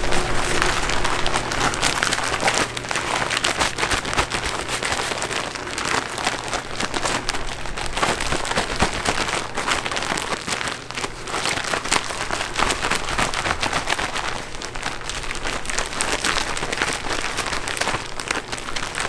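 Plastic bag holding chicken tenders and dry breading being shaken to coat them: a continuous rustle of the bag with many fine clicks.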